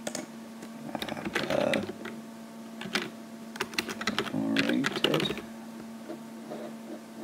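Typing on a computer keyboard: irregular runs of key clicks in short bursts, mostly in the first five and a half seconds, over a steady low hum.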